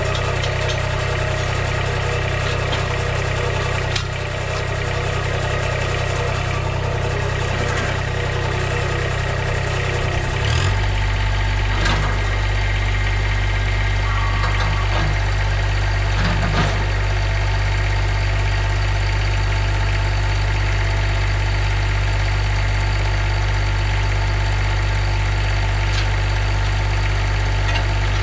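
Kubota compact tractor's diesel engine running at a steady idle while the front loader holds a snow plow. About ten seconds in, the engine note shifts and runs slightly louder as the loader is worked, with a few light knocks after that.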